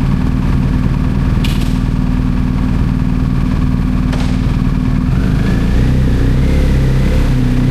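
BMW R1250GS Adventure's boxer-twin engine through an Akrapovic slip-on exhaust, running steadily on the move, then rising in pitch from about five seconds in as it accelerates. Two brief clicks are heard, at about a second and a half and about four seconds in.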